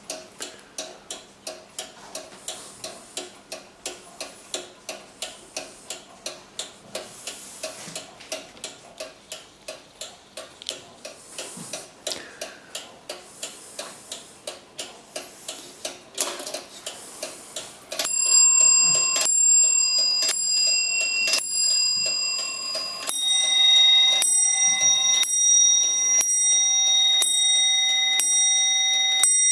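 Pierre Jaquet-Droz 18th-century table Zappler clock running, its brass movement ticking briskly at about two and a half beats a second. Over halfway through it starts striking on its bells about once a second: about five blows on one bell, then repeated blows on a second, differently pitched bell.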